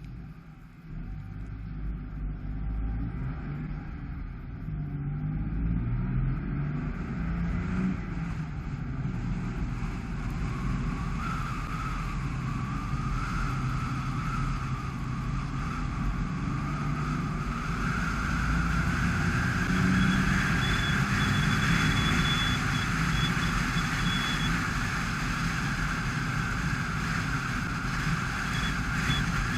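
Dacia Sandero Stepway driving on a wet road. The engine picks up speed over the first several seconds with a rising note, then a steady tyre-and-road hiss grows and holds.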